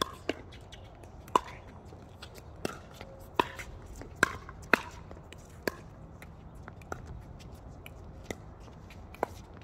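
Pickleball rally: paddles striking a hollow plastic pickleball back and forth, a series of sharp pops about once a second at uneven intervals.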